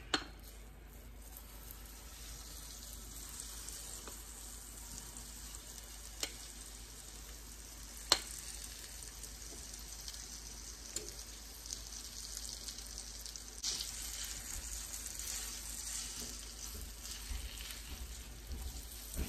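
Hot bacon grease sizzling in a Lodge cast-iron skillet as thick cornbread batter is scraped in with a spatula; the sizzle builds and grows louder in the second half. A few sharp knocks come through, the loudest about eight seconds in.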